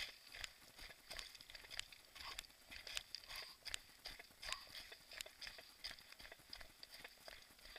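Faint footsteps of someone running downhill over loose rock and scree: stones crunch and clatter underfoot in an uneven rhythm of about two steps a second.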